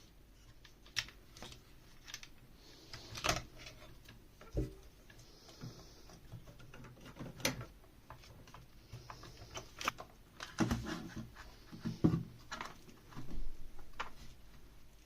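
Irregular clicks and light taps of small tools and parts being handled on a workbench, with a few short soft hisses in between.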